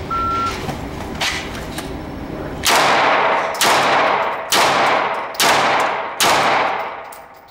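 A short shot-timer beep, then five pistol shots from a Walther PPQ 5-inch, evenly spaced a little under a second apart, each ringing off the walls of an indoor range.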